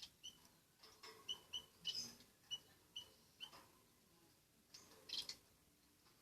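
A small pet bird giving short, faint, high chirps, about two a second, with a few soft clicks near the end.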